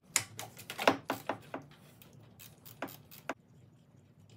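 Irregular sharp clicks and taps of a tool and metal parts as the 15 mm bolt of a serpentine belt idler pulley is loosened and the pulley is handled. About a dozen clicks, stopping a second before the end.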